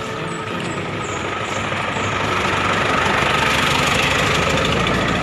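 A truck's engine running close by, growing louder over the last few seconds.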